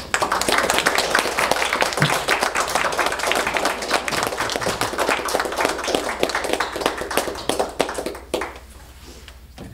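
Audience applauding, many hands clapping at once, starting abruptly and dying down after about eight seconds.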